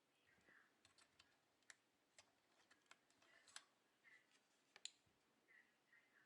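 Faint, irregular small clicks and taps from handling small parts and tools while repairing a key-fob remote, with a few faint short chirps between them.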